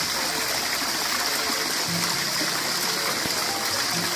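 Water in a garden water-feature cascade running down a stone channel and spilling over a ledge into a pool below: a steady splashing rush.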